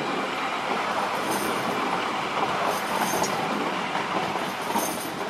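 Low-floor articulated tram passing close on curving track, its wheels running on the rails, with short high-pitched wheel squeals about a second in, around three seconds and near the end.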